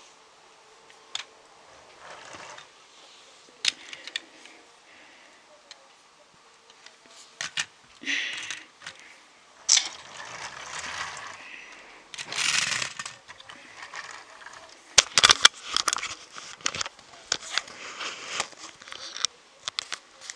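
LEGO toy vehicles pushed by hand across a parquet wooden floor: plastic wheels rolling in noisy stretches of a second or so, with scattered clicks and knocks of plastic, coming thick and fast in the last few seconds.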